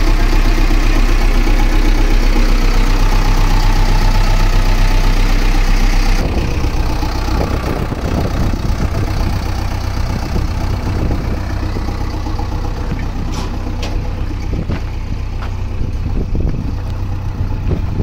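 JCB 3CX backhoe loader's diesel engine idling steadily. For the first six seconds it is heard inside the cab with a steady hiss over it; after that it is heard from outside the machine, with a thinner hiss.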